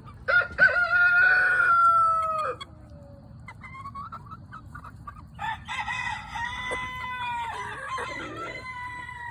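A young rooster trying to crow. It gives two drawn-out crows: a loud one in the first few seconds that falls slightly in pitch, then a longer, quieter one from about halfway through, with hens clucking faintly in between.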